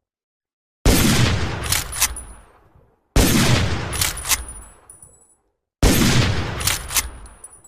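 Winchester Model 1895 lever-action rifle firing three shots about two and a half seconds apart, each with a long echoing tail. Each shot is followed by two sharp metallic clicks, the lever being worked open and shut to chamber the next round.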